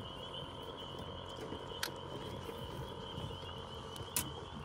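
A chorus of frogs trilling steadily in the background, a continuous high, fluttering trill. Two short clicks come about two seconds in and again near the end.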